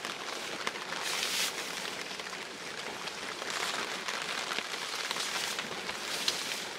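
Heavy rain falling on a vinyl sheet rigged overhead as a tarp: a steady hiss dotted with small drop ticks, swelling louder several times. The plastic of a rain poncho rustles near the end as it is pulled off.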